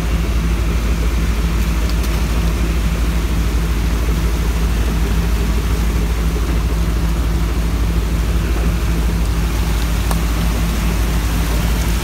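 Steady low diesel engine rumble from a fishing boat running at the dock, with a constant hiss like running or spraying water over it.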